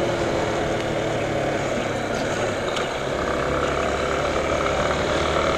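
Motorcycle engine running while being ridden, heard from the rider's seat over a steady wash of wind and road noise; the engine note shifts about halfway through.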